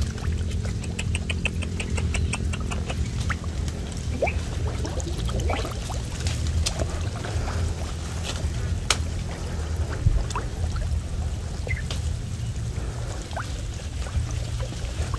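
Muddy river water sloshing and splashing as a gill net is hauled through it by someone wading, with netted fish thrashing at the surface. A quick run of evenly spaced high ticks sounds about a second in.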